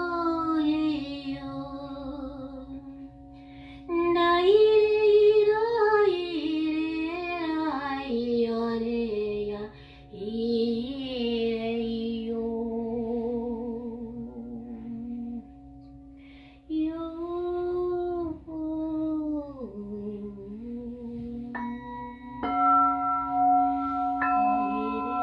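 Wordless female singing with vibrato, in slow phrases over the steady held drone of singing bowls. Near the end a few more bowl tones are struck one after another and ring on.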